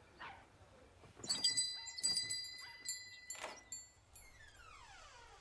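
Film sound effects at an iron gate: several short sharp cries, a metallic bell-like ringing that starts about a second in and lasts a couple of seconds, and a long falling squeal near the end.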